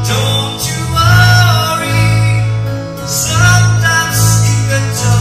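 Live band music: strummed acoustic guitar over a steady bass, with a voice singing long held notes.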